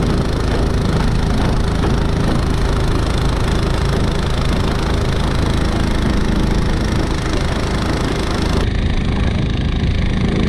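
Anbull 7.5 hp 223cc single-cylinder four-stroke engine driving a Mudskipper long-tail surface-drive mud motor, running steadily under load as it pushes the jon boat along during break-in.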